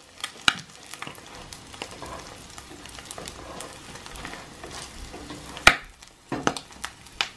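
Egg-in-toast frying in oil in a skillet, a steady sizzle, with a black plastic slotted spatula scraping and tapping against the pan several times, the loudest tap a little under six seconds in.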